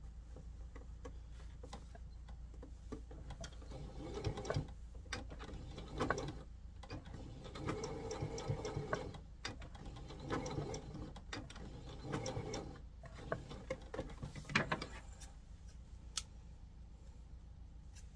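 Electric sewing machine stitching in a series of short runs of rapid clicking, stopping and starting several times between about four and fifteen seconds in.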